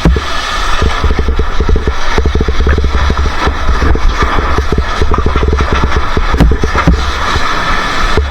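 Motorcycle engine running while riding, a loud steady low rumble with a hiss over it.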